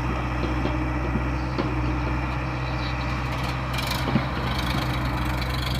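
Heavy diesel earth-moving machinery running steadily at an even low pitch, with a short hiss a little before four seconds in, another starting at the very end, and a few light knocks.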